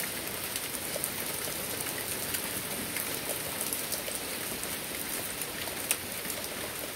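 Small hail mixed with rain falling on a wooden deck: a steady hiss of rain with many sharp little ticks of pellets striking the boards, and one louder tick near the end.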